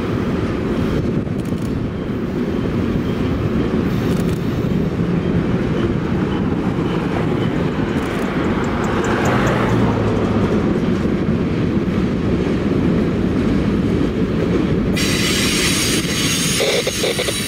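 Freight cars of a long mixed train (autoracks, covered hoppers, tank cars) rolling past, a steady low rumble of wheels on rail. About fifteen seconds in, a high-pitched squeal of wheels on the rails joins in.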